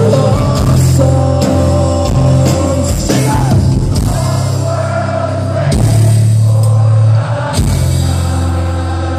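Live rock band playing the close of a song: drum kit, guitars holding sustained low chords, and lead singing. The playing drops back about seven seconds in.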